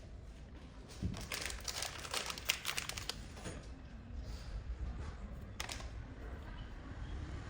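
Handling noise: a quick run of small clicks and crinkles, then a single sharp click a few seconds later, over a low steady rumble.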